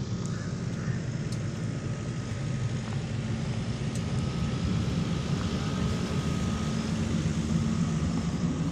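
Generator set at a construction site running steadily, a continuous low engine hum.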